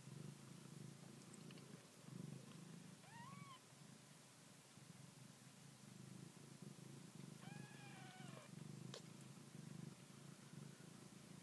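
Faint, steady purring from a seal-point Siamese mother cat nursing her newborn kittens. Two thin, high mews break in, a short one about three seconds in and a longer one later, with a single small click shortly after.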